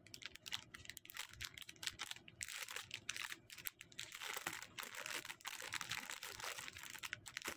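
Thin clear plastic packaging bag crinkling as it is handled and opened. Scattered crackles at first, becoming denser and steadier after about two seconds.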